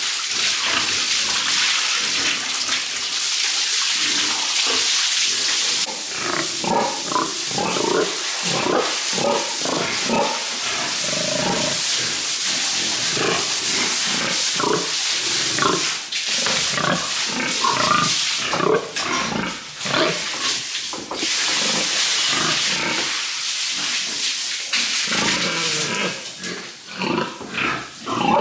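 Pigs grunting over a steady hiss of spraying water as they are bathed. The grunts come thick and fast from about six seconds in.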